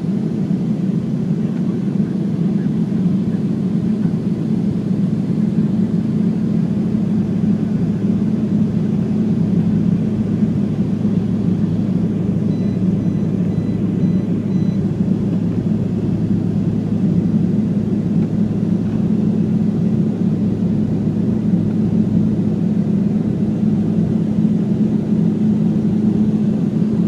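Steady cabin noise of a jet airliner in the climb after take-off: the engines' drone and rushing air, with a low steady hum.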